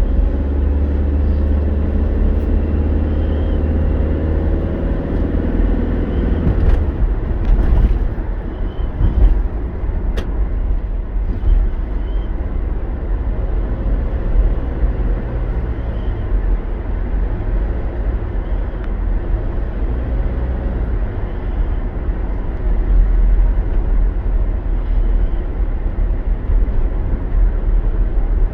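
Car cabin noise while driving: a steady low rumble of road and engine, with the engine's hum clearly pitched for the first several seconds. A few short clicks about seven to ten seconds in.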